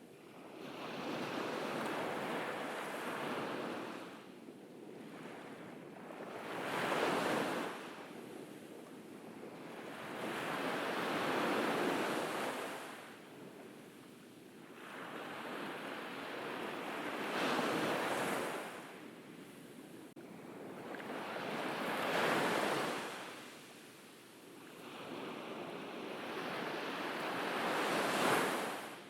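Ocean waves breaking and washing on a beach, the surf swelling and fading about every four to five seconds.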